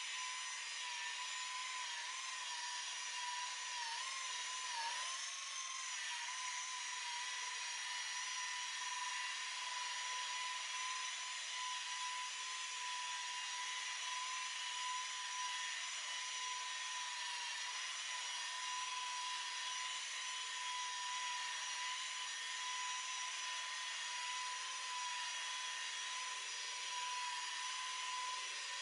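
Electric rotary buffer running with a steady high whine; its pitch wavers for the first few seconds, then holds steady, as the pad is worked on the boat's oxidized gelcoat.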